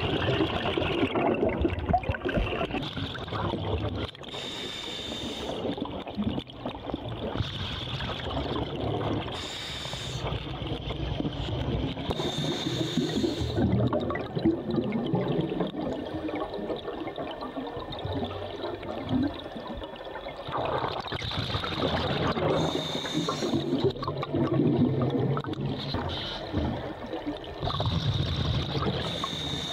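Scuba breathing underwater: exhaled bubbles gurgling and bubbling from a diver's regulator, with a short hiss of the regulator every few seconds.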